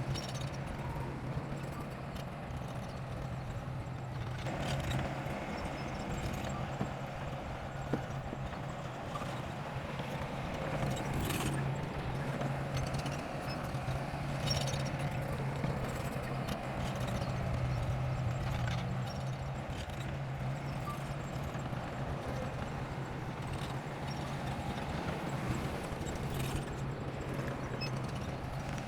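Heavy diesel engine of earthmoving machinery, most likely a bulldozer, running steadily, with occasional short knocks and clanks.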